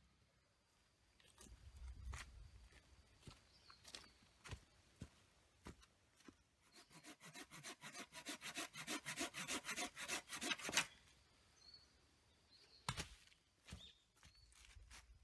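Hand saw cutting through wood in a fast, even run of back-and-forth strokes, about six a second for some four seconds, stopping abruptly. Scattered knocks and clicks of wood being handled come before and after.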